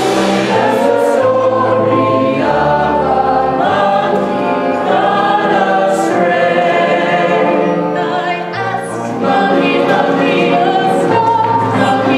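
Ensemble chorus singing together with live pit orchestra accompaniment in a stage musical number.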